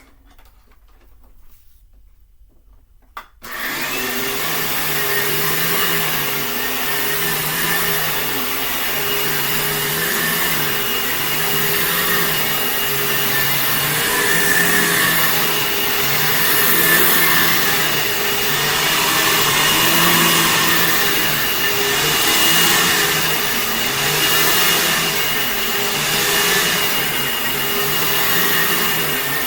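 Dirt Devil Classic vacuum cleaner switched on about three seconds in, with a click, then running loudly and steadily with a thin whine. Its low hum dips and recovers in a regular rhythm, roughly once every second and a bit.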